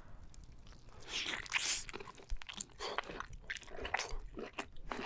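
A person bites into the meat of a large conch (sea snail) about a second in and then chews it, a run of quick crunchy clicks.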